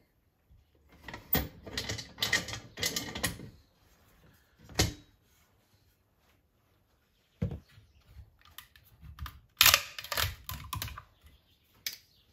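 Irregular metal clicks and clanks from an aluminium pressure pot being opened: its wing-nut clamps loosened and swung aside and the metal lid lifted off. The sounds come in separate clusters with quiet gaps between them, the densest about two seconds in and again about ten seconds in.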